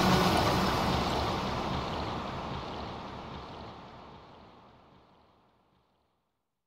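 The background music ends in a noisy wash that fades away steadily over about five seconds into silence.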